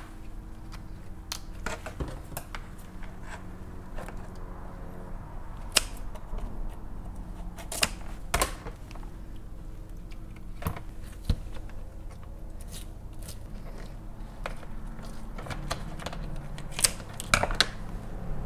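King crab leg shell being cut with kitchen shears and snapped apart by hand: scattered, irregular sharp cracks and clicks over a steady low room hum.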